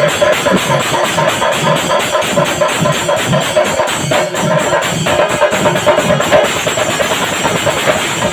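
Chenda melam: a large ensemble of chenda drums beaten with sticks in a fast, dense rhythm, with cymbals ringing and a steady pitched tone running through it.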